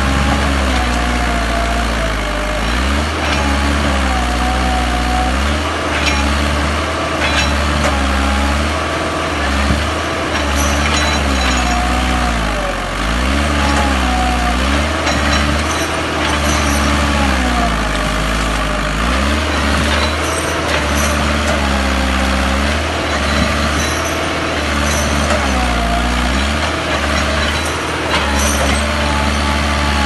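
Massey Ferguson 285 tractor's four-cylinder diesel engine labouring under load as it drags felled tree trunks. Its pitch sags and climbs back again and again, every few seconds.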